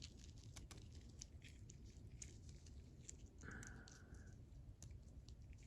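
Faint, scattered light clicks and taps of small steel ratchet parts being handled on a bench.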